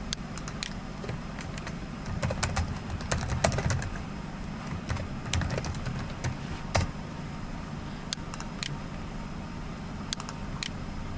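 Computer keyboard keys clicking in quick, irregular runs as an email address and password are typed, for about seven seconds. A few separate clicks follow near the end, over a low steady hum.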